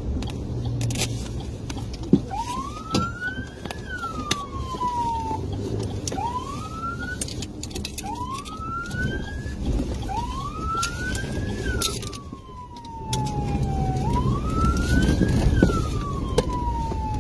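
Police car siren sounding in rising and falling sweeps, some cut short, switched on about two seconds in to signal the truck ahead to pull over. It is heard from inside the police car's cabin over steady engine and road noise.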